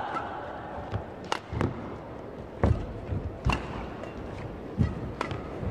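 Badminton doubles rally: sharp racket strikes on the shuttlecock roughly once a second, with low thuds of players' feet landing on the court.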